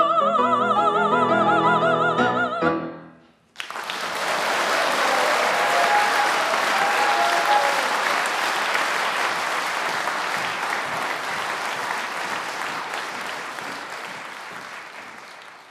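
A soprano holds the song's final note with wide vibrato over piano chords, cutting off about two and a half seconds in. After a brief pause an audience applauds, the applause slowly fading near the end.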